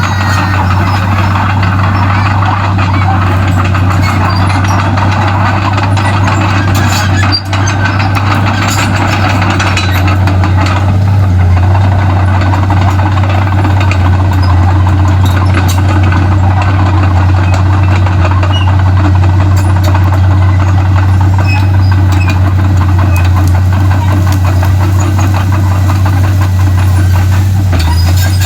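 Komatsu D31P bulldozer's diesel engine running steadily with a deep, even hum.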